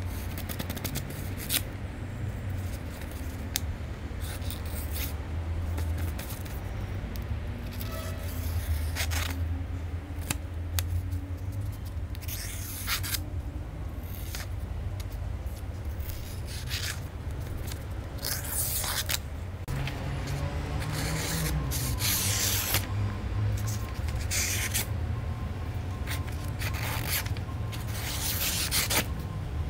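Freshly sharpened kitchen knife slicing through a sheet of paper to test its edge: a series of short, crisp rasping cuts, one every second or two, over a low steady hum.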